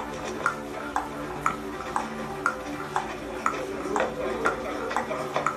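Countdown-clock ticking sound effect: an even tick-tock about twice a second, alternating a higher and a lower click, over a steady low musical drone.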